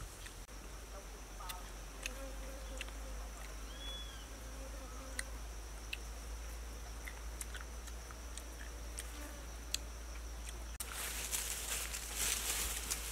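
Steady high-pitched insect drone in the forest, with scattered small clicks of chewing. Near the end it gives way to louder rustling of leaves and undergrowth underfoot.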